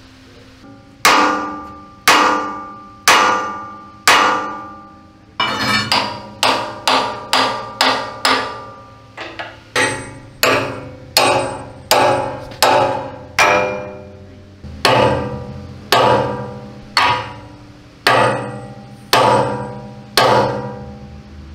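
A hammer strikes a steel chisel wedged behind the StuG III's driver's vision block, working the fused block loose from the armour plate, and each blow rings as it dies away. The blows come about once a second, quicken to about two a second for a few seconds, then slow again.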